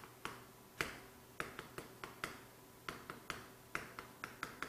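Chalk tapping on a chalkboard as Korean characters are written by hand: a string of short, sharp, irregular taps, a few each second.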